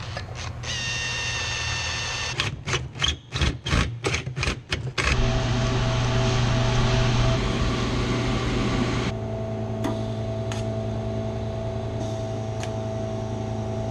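TIG welding a stainless steel O2 sensor bung into a car's exhaust pipe: a run of about eight short, sharp arc bursts, then a long steady buzzing arc over a constant low hum from the welder.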